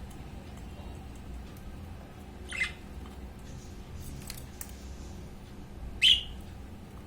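Budgerigars giving two short chirps, one about two and a half seconds in and a louder one near the end, with a few faint ticks between them.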